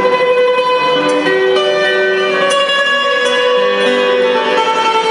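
A many-stringed harp-lute, a lute body with extra harp-like string arms, plucked in a slow melody. Its notes ring on and overlap.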